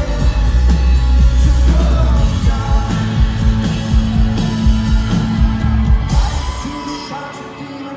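Live rock band playing with lead vocals, heavy bass and drums, heard at a concert. Near the end the bass and drums drop away and the music gets quieter.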